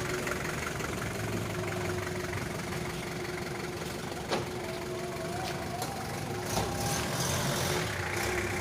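Speed boat's outboard motor running steadily, with a couple of brief sharp knocks a little before and after the middle.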